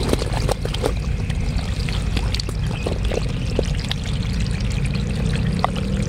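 Wet mud and water squelching and trickling as a hand gropes and digs through soft pond mud, over a steady low rumble.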